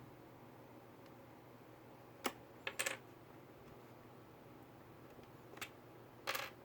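A handful of light, sharp clicks and taps, as from small hard parts being handled on a laptop: a single click, a quick pair, then two more spaced clicks near the end.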